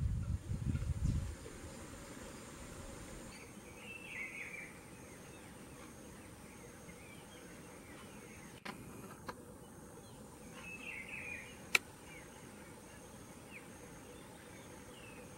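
Faint bird chirps come in short clusters about four seconds in and again around eleven seconds, over a steady outdoor hiss. There is a low rumble in the first second and a sharp click near twelve seconds.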